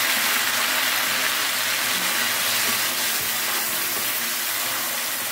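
Salted dried fish deep-frying in hot oil in a wok: a steady sizzle.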